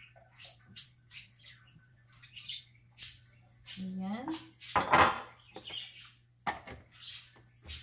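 Clatter of kitchen plastic as a blender jar, its lid and a small cup are handled and set down, a string of light knocks and clicks. A short rising squeak comes about four seconds in, and the loudest scrape about a second later. A steady low hum runs underneath, and the blender motor is not running.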